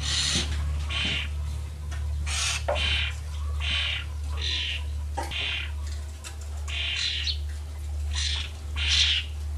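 Small garden birds calling with short, harsh chirps, about one a second, over a steady low hum.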